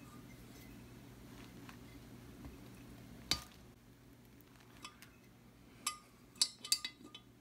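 Metal clinks of a wrench and steel nuts on a cylinder head stud as a double-nutted stud is turned down: one sharp clink about a third of the way in, then a quick cluster of clinks near the end, over a faint steady low hum.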